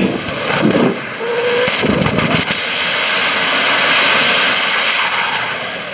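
Jet engine of a jet-powered golf cart running at full power as the cart speeds past: a loud rushing roar that swells to a peak and then fades, with a high whine that drops in pitch near the end as it goes by.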